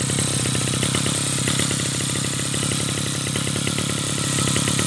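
Mitsubishi TU43 two-stroke brush cutter engine idling steadily, running smooth on a freshly replaced cylinder block and piston.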